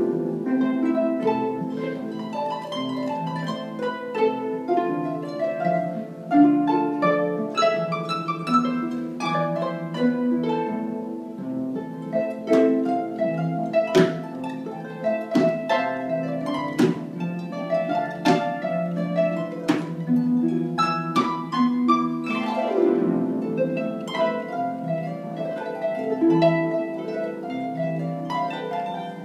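An ensemble of five harps playing a cumbia together, many plucked notes and chords at once. Several sharp knocks come in the middle, and a downward sweep of notes runs about three-quarters of the way through.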